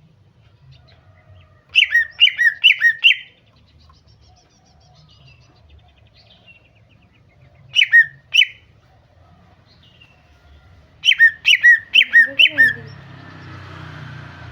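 Cucak ijo (green leafbird) calling in quick runs of two-note chirps, each a high note dropping to a lower one: four about two seconds in, two near the middle, and five near the end. A faint hiss comes in just after the last run.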